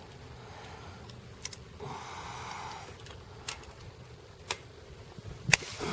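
A few scattered sharp clicks and taps from hands-on work, with a short rustle about two seconds in and a low steady background rumble.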